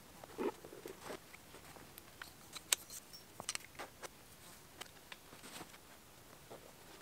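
Scattered clicks, taps and rustles of a large-format field camera and tripod being handled and packed away, with one sharp click a little under three seconds in.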